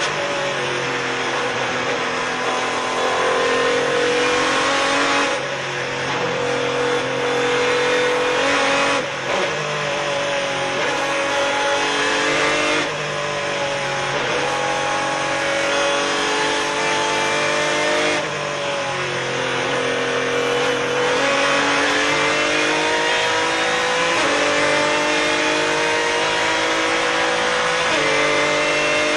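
Ferrari 550 Maranello GT1 race car's V12 engine at full throttle, heard from inside the cockpit. It climbs in pitch and drops sharply several times as the car shifts gear.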